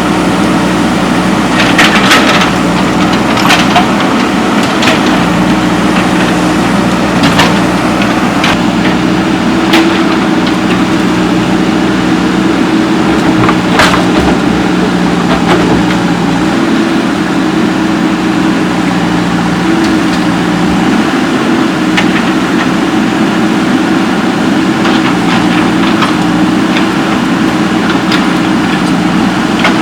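Excavator's diesel engine running steadily at work, its pitch dipping slightly now and then, with scattered sharp knocks and clanks.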